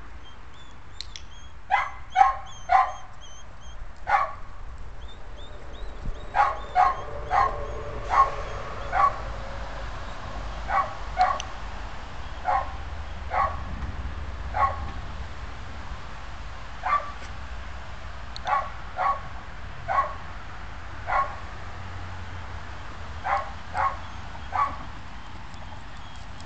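Border collie barking: short, sharp barks at irregular intervals, sometimes two or three in quick succession, over a steady low rumble of wind.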